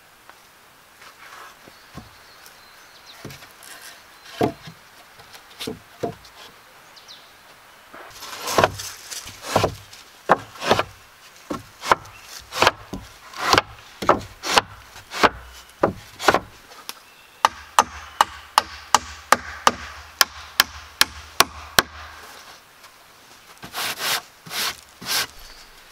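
Wooden boards knocking against a wooden frame as they are handled and laid in place: scattered knocks at first, then a busy irregular run of knocks, then a quick even series of about sixteen knocks, and a few loud knocks near the end.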